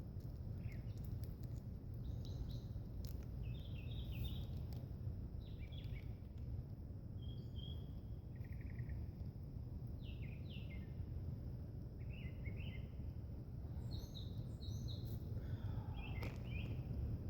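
Birds chirping in short, repeated bursts of a few quick notes, over a steady low background rumble, with a faint steady high insect-like tone.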